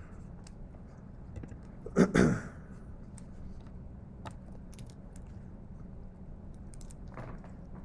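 A paper worksheet being slid and handled on a desk: a brief rustle about two seconds in, then faint scattered ticks and taps.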